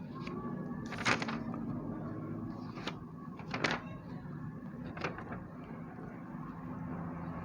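Slow, irregular keystrokes on a computer keyboard, about six clacks spread over several seconds, over a steady low room hum.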